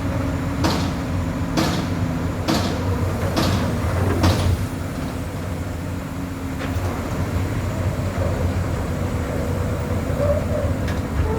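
Komatsu PC200 excavator's diesel engine running steadily, with five sharp knocks about a second apart in the first few seconds.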